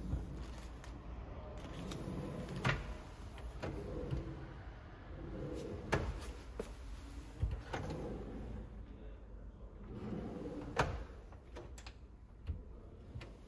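Hacker Systemat kitchen drawers sliding open and shut, each closing with a sharp knock, about six times in all. Near the end a built-in oven door is pulled open.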